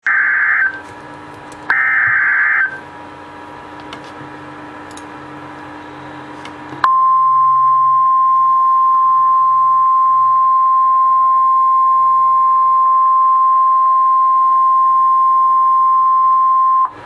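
NOAA Weather Radio Emergency Alert System signal. Two bursts of about a second each of buzzy SAME digital header data open it, then after a few seconds of low radio hiss comes the steady 1050 Hz warning alarm tone, held for about ten seconds.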